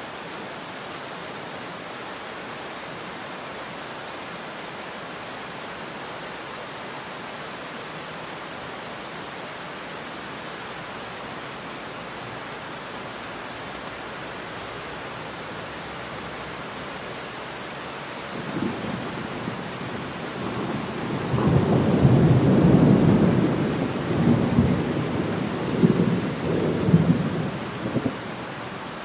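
Heavy rain falling steadily. About two-thirds of the way through, a roll of thunder builds, rumbling loudest for a few seconds and swelling again several times before dying away near the end.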